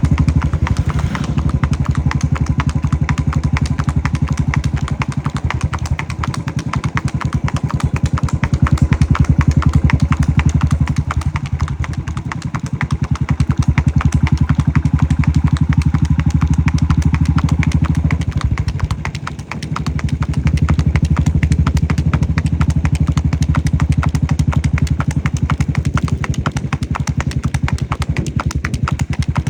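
Motorcycle engine running steadily, with a brief easing of the throttle about two-thirds of the way through.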